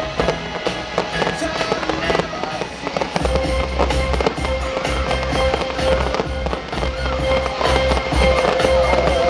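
Fireworks bursting and crackling in quick succession, many sharp bangs, over music with held notes and a steady low beat that comes in about three seconds in.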